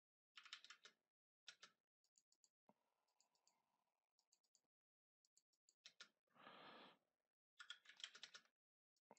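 Faint computer keyboard typing and mouse clicks in short separate clusters as CAD commands are entered. There is a brief soft rush of noise about two-thirds of the way through.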